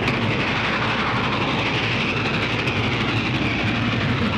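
A train running at speed: a steady rumbling rush with no break, heard on an early sound-film track.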